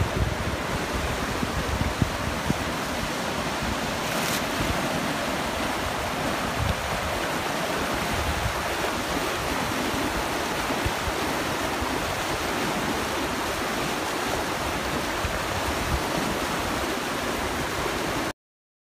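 Fast mountain river rushing over rapids, a steady whitewater rush that cuts off abruptly near the end.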